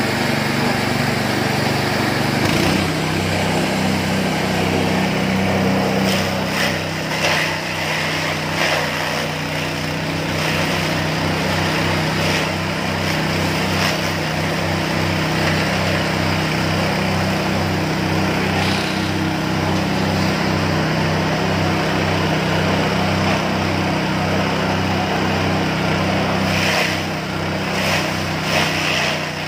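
Engine-driven elephant-grass (napier grass) chopper running steadily while stalks are fed in and cut, with brief bursts of noise now and then as the grass hits the blades.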